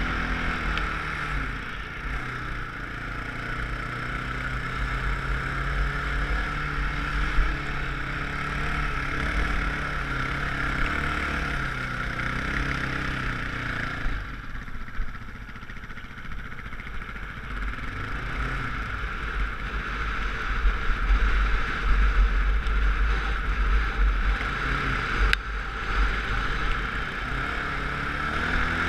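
Dirt bike engine running and revving up and down as it rides over sand, over a heavy low wind rumble on the bike-mounted microphone. The engine eases off about halfway through, then picks up again.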